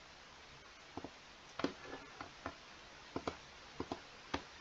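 Faint, scattered clicks of a computer mouse, about ten over a few seconds, some in quick pairs.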